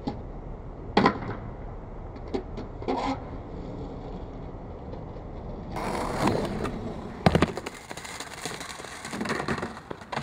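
Skateboard wheels rolling on a ramp, with sharp clacks and knocks of the board. The loudest is a quick cluster of clacks about seven seconds in.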